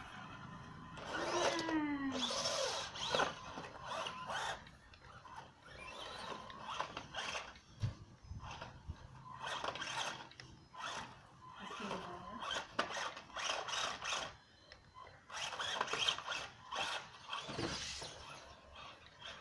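Small electric motors of RC trucks whining in short stop-start bursts of throttle, one winding down in pitch about two seconds in, with knocks and scrapes of the trucks' tyres and chassis on wooden steps and ramps.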